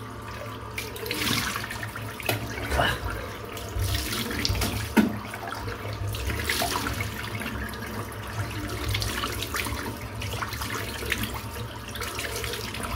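Water running from a tap into a bathroom sink, with irregular splashing and one sharper hit about five seconds in.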